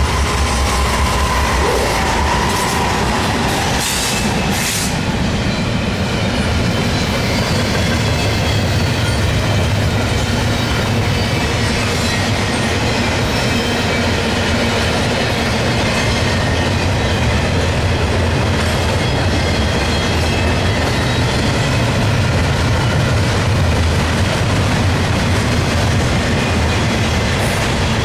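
A Norfolk Southern double-stack intermodal freight passing at close range: the steady rumble and clatter of steel wheels on the rails as the container well cars roll by. The two leading GE Dash 9-40CW diesel locomotives go past in the first couple of seconds, adding a deeper engine drone.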